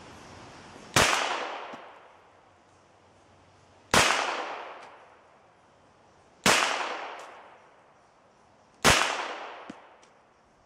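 Four single shots from a Metro Arms full-size 1911 .45 ACP pistol, fired slowly about two and a half to three seconds apart, each a sharp crack followed by an echoing tail that dies away over about a second.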